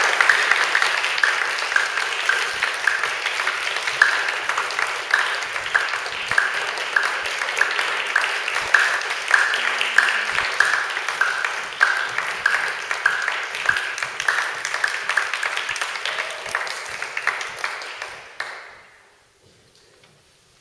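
Audience applauding, with one nearby pair of hands clapping steadily at about two claps a second over the rest. The applause dies away near the end.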